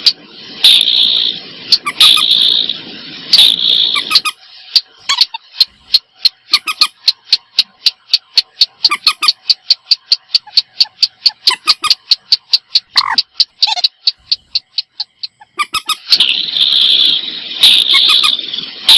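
Recorded calls of common moorhen and a paddy-field rail, played as a bird lure. Harsh, raspy call bursts come at the start and again near the end. Between them runs a long, rapid series of sharp ticking notes, about five or six a second, that speeds up and then slows before breaking off.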